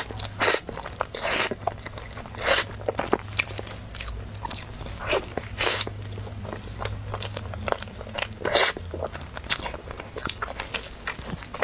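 Biting and chewing a seaweed-flavoured pork-floss cake with a stretchy mochi filling: irregular wet crunches and chewing sounds, several bites in a row.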